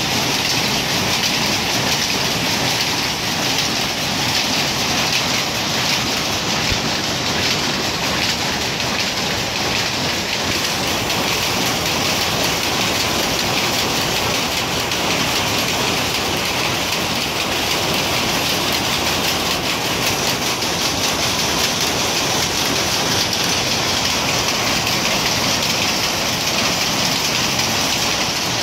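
Power looms running together in a weaving shed: a dense, steady mechanical clatter of many fast-beating looms that holds at one level throughout.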